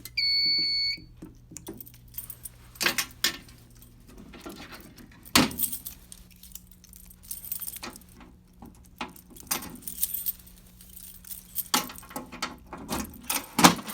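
A fire alarm control panel's piezo sounder beeps once for about a second at the start, then keys jangle with scattered clicks and knocks over a low electrical hum.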